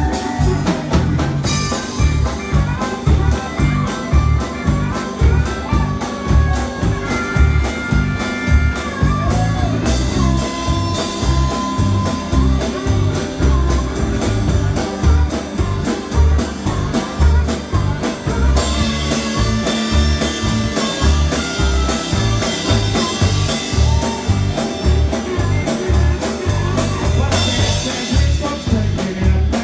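Live blues band playing with a steady drum beat, electric guitar and harmonica.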